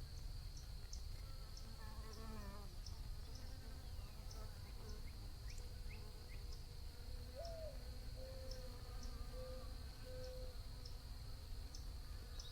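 Bees buzzing as a steady low drone, with a constant high insect trill above it and faint bird chirps in the background.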